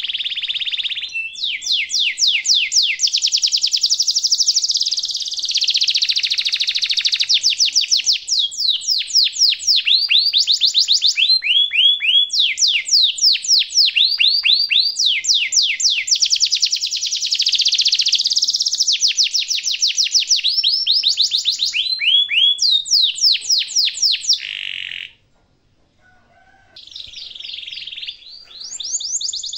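Domestic canary singing a long song of fast rolling trills, each made of rapid repeated down-sweeping notes, the phrases shifting in speed and pitch. The song breaks off briefly near the end and starts again.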